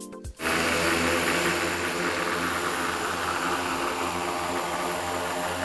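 Multirotor agricultural spraying drone's rotors running at full speed as it lifts off the ground: a loud, steady rotor whir with a low hum underneath, which cuts in about half a second in.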